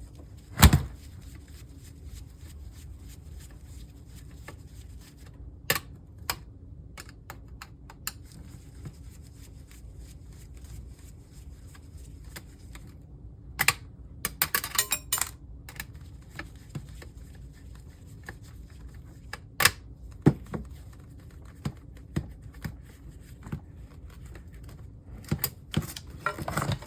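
Scattered clicks and knocks of a screwdriver and loose parts against an LCD monitor's metal frame and plastic housing as its side screws are taken out. A sharp knock about a second in is the loudest, with a quick run of clicks near the middle and more near the end.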